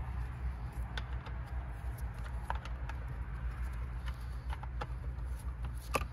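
Scattered small metal clicks and taps of a chainsaw scrench being handled and fitted onto the clutch-cover nuts of a Husqvarna chainsaw, the sharpest click near the end, over a steady low hum.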